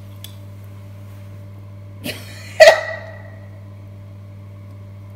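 A person's short, loud cough-like sound about two and a half seconds in, with a softer one just before it, over a steady low hum.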